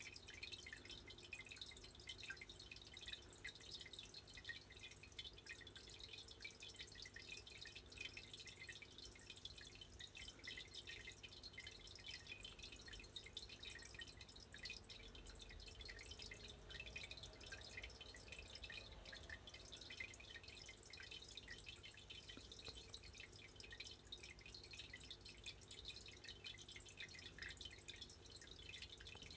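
Near silence: faint room tone with a low steady hum and scattered faint, short high ticks.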